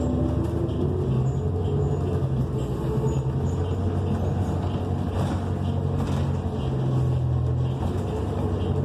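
Inside a New Flyer XN40 natural-gas transit bus: its Cummins Westport ISL G engine and Allison automatic transmission running with a steady low drone.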